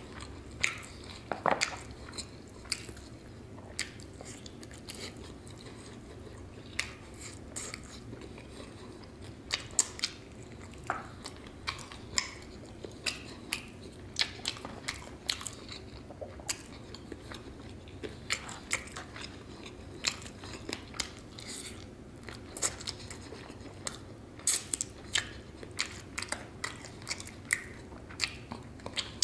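A person eating sauced fried chicken wingettes close to the microphone: biting and chewing, with a steady, irregular run of short wet mouth smacks and clicks as the meat is pulled off the bones.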